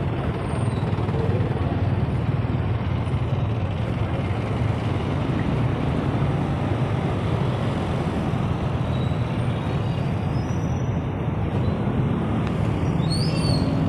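Steady city road traffic: the engines of trucks and motorcycles running close by in a continuous low rumble.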